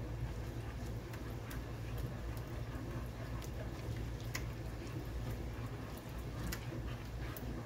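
A spoon stirring a thick tomato-paste sauce around a nonstick skillet, with scattered small irregular clicks and pops over a steady low hum.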